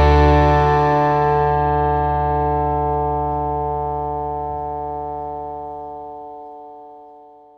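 Background music ending on a held chord that rings on and fades slowly away; the low notes drop out about six seconds in.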